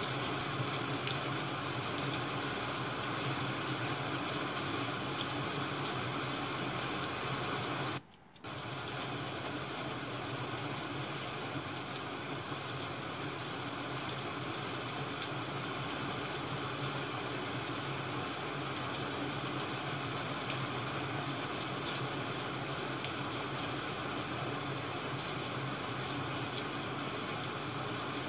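Ambient rain-and-crackling-firewood sound track: a steady hiss of rain with scattered sharp crackles and pops. It cuts out briefly about eight seconds in, then resumes.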